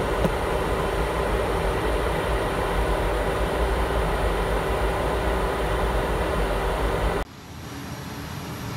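Airliner cabin noise in flight: a steady deep rumble and rush of air with a constant hum. About seven seconds in it cuts off abruptly to a quieter, steady cabin hum.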